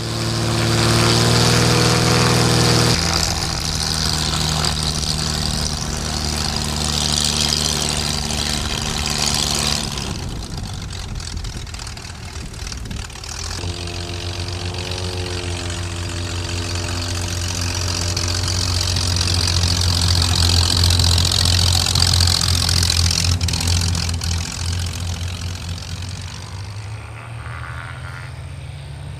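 Air-cooled Corvair flat-six engine and propeller of a Zenair STOL CH 701 light plane running, with wind rush. The engine note drops about three seconds in and drops further around ten seconds. Power comes back with a wavering pitch around fourteen seconds and eases off again near the end.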